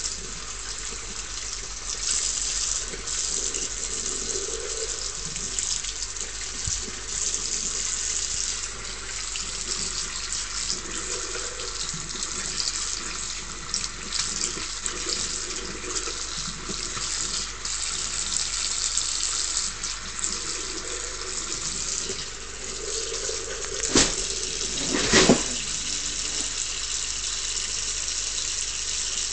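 A thin stream from a mixer tap running steadily into a ceramic washbasin, with a cat drinking from the stream. Two sharp knocks come about a second apart near the end.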